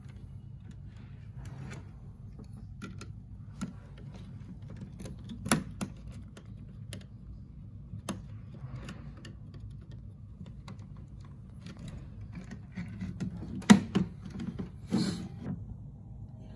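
Small clicks and taps of a screwdriver working the terminal screws of a plastic thermostat base, with wires being handled. A couple of louder knocks come near the end.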